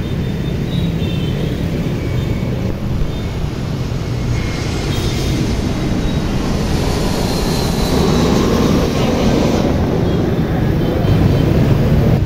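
Airbus A320 airliner on approach passing low overhead, its IAE V2500 turbofans making a broad jet roar that grows louder as it goes over.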